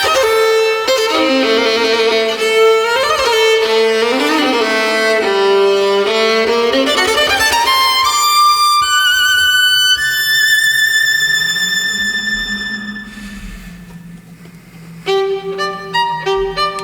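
Solo violin playing fast passages with sliding, wavering notes that climb to a long high held note. The note fades almost away, then a fast repeated figure starts near the end.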